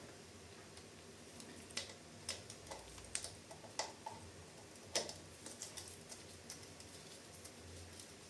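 Faint, irregular clicks and light metallic clinks, a few of them briefly ringing, typical of small tools and parts being handled. The loudest click is about five seconds in.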